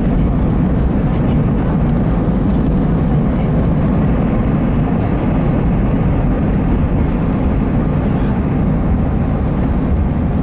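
Steady engine and airflow rumble of an Airbus A320 heard from inside the passenger cabin, an even low noise without tones or knocks.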